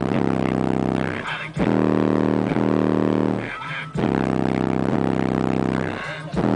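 Lightning Audio Storm 15-inch car subwoofer playing long, buzzing low bass notes, each held about two seconds, with brief gaps between them.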